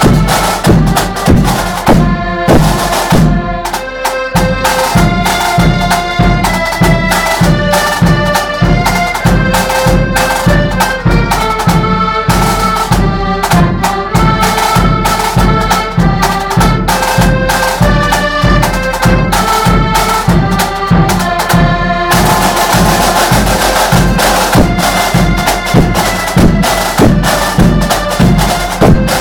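Accordion band playing a march: massed accordions carry the melody in held, stepping notes over drums beating a steady rhythm. The band's sound grows fuller and brighter about three-quarters of the way through.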